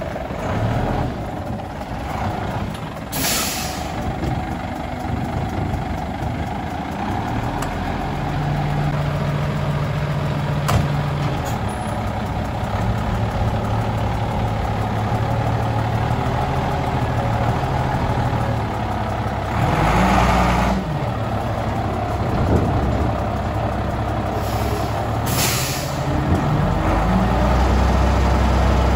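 1986 Volvo garbage truck's diesel engine running as the truck inches forward, its note growing heavier near the end. Short hisses of air from the brakes come about three seconds in, around twenty seconds and again about twenty-five seconds in.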